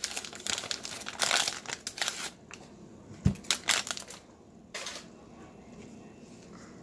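Plastic trading-card pack wrapper crinkling and crumpling as a pack is torn open and handled, loudest in the first two seconds. A dull knock about three seconds in, then a few more crackles before it goes quieter.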